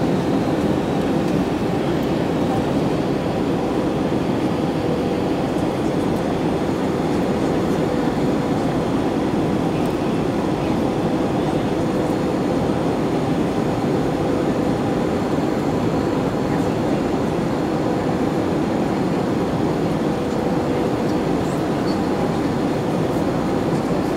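Cabin noise inside an Airbus A321 on final approach: a steady rush of engine and airflow noise at a window seat over the wing, with a faint steady hum running through it.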